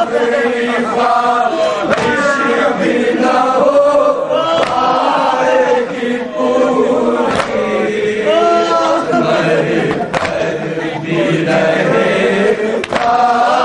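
Men chanting an Urdu nauha, a Shia lament, with a lead reciter and other men's voices joining in together.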